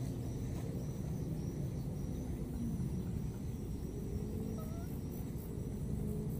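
Steady low rumble with a faint high chirp repeating about twice a second. A short rising squeak comes about four and a half seconds in.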